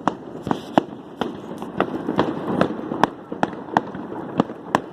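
Fireworks going off: a string of sharp bangs, about three a second, over a constant crackle.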